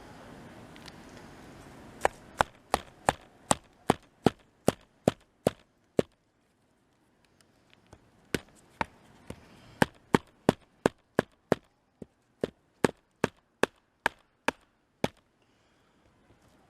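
A wooden baton stick beating on the back of a small hatchet head to drive it into a log and split it, with quick, sharp knocks about two and a half a second. There are two runs of knocks with a short pause between them.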